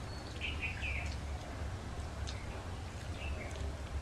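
Eating by hand from steel plates: fingers squishing and mixing rice with fish curry, with a few light clicks against the metal and mouth sounds, over a steady low hum. Short squeaky chirps, like small birds, come about half a second in and again past three seconds.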